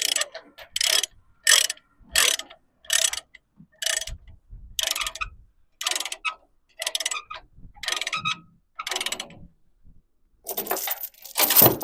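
Ratchet load binder being cranked to tighten a tie-down chain, its pawl clicking in regular strokes about one and a half per second, with a short pause near the end before a last few strokes.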